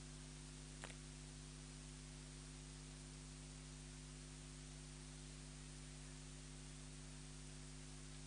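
Near silence: a steady hiss with a low electrical hum, and one faint click about a second in.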